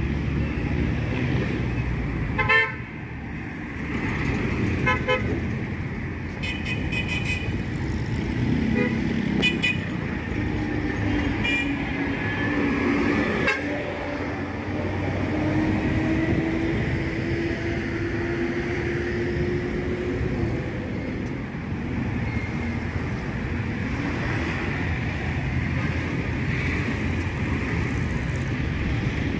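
Street traffic going by steadily, with several short horn toots in the first half and a long, slowly rising drone from a passing vehicle in the middle.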